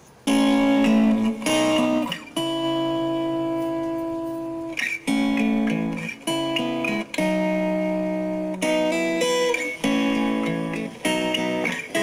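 Small aux-cable portable speaker playing a plucked-guitar music medley from a phone. The music starts suddenly just after the beginning and runs in phrases with a few brief breaks. The freshly repaired speaker is working.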